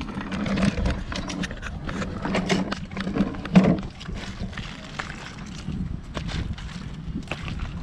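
Wet fish and chunks of ice being handled on concrete: irregular slaps, knocks and clicks as a gloved hand sorts the catch, with the loudest knock about three and a half seconds in.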